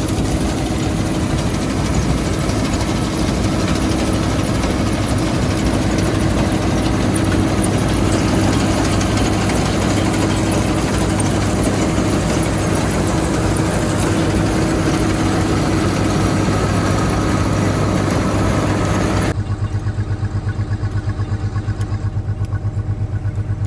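Engine-driven farm machinery running steadily and loudly. About 19 seconds in, the sound changes abruptly to an engine running with a fast, even chug.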